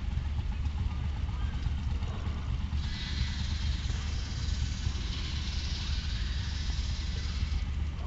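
Wind buffeting the microphone: a steady low rumble, with a hiss added from about three seconds in until near the end.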